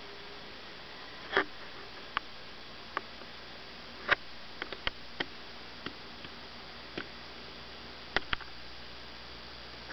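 Steady faint hiss broken by about a dozen sharp, irregular clicks and ticks, the loudest about a second and a half in and about four seconds in, with a quick pair near the end.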